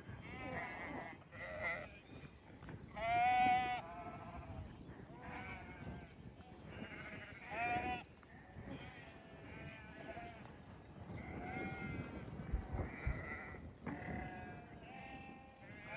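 A flock of sheep bleating, many calls overlapping one after another, the loudest one about three seconds in.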